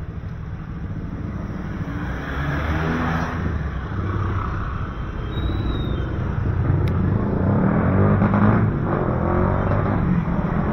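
Motorcycle and car engines in slow, close street traffic, with motorcycles passing close by. The engine noise builds and is loudest about eight seconds in.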